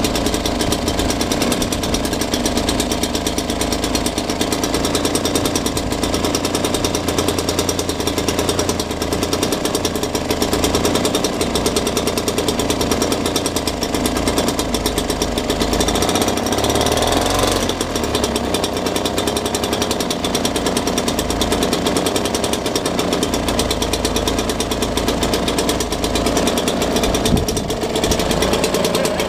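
British Seagull Silver Century single-cylinder two-stroke outboard running steadily with a fast, even firing beat, its propeller churning water in a test bin. This is its first run after restoration.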